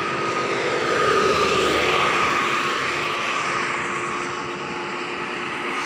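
Traffic passing on a toll road: the engine and tyre noise of buses and trucks going by as a steady drone, swelling about a second in and easing off near the end.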